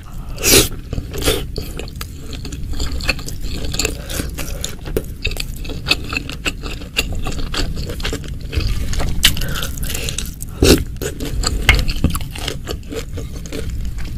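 Close-miked eating of meatballs in spicy broth: wet chewing and mouth sounds mixed with scraping and light clinks in the bowl, and the slosh of broth.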